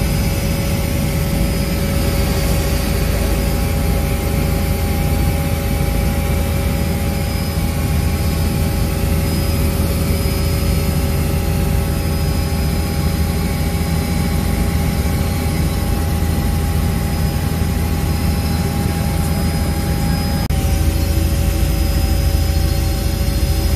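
Steady in-flight noise inside a helicopter cabin: engine and rotor running evenly, with a few steady whining tones above the low rumble. The tones shift slightly about twenty seconds in.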